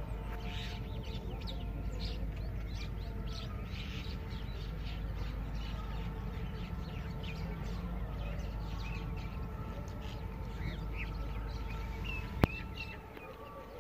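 Many small birds chirping over a steady low background hum, with one sharp click near the end.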